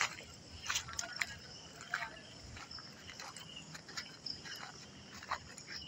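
Outdoor woodland ambience: faint steady high insect buzzing under irregular short crackles and clicks.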